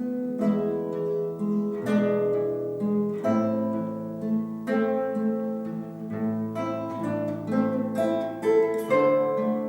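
Acoustic guitar playing a slow melodic piece: plucked single notes and chords that ring on over a moving bass line.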